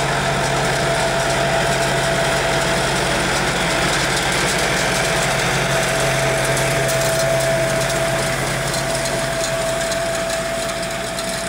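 Massey Ferguson 4345 tractor's diesel engine running steadily under load while it pulls and drives a Vicon Haybob 300 rowing grass, with a thin steady whine over the engine. The sound falls a little near the end as the tractor moves away.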